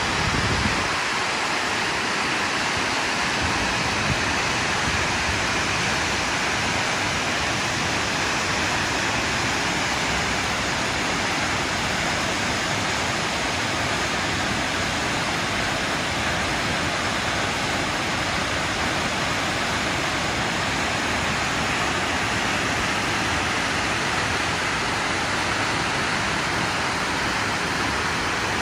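Large fan-shaped waterfall pouring over a cliff face: a steady, unbroken rush of falling water.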